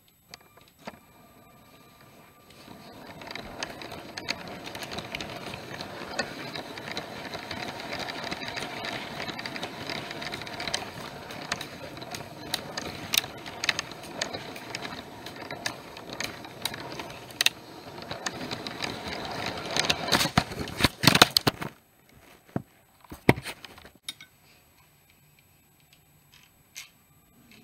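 A motorised Lego train running on plastic track, a steady rattling hum full of small clicks from the wheels and motor, then a burst of loud clattering about twenty seconds in as it crashes, stopping suddenly. A few scattered clicks follow.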